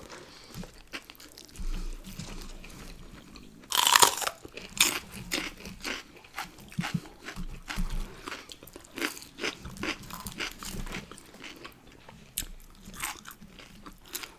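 A person biting and chewing crunchy fast food: one loud crunching bite about four seconds in, then repeated crunchy chewing.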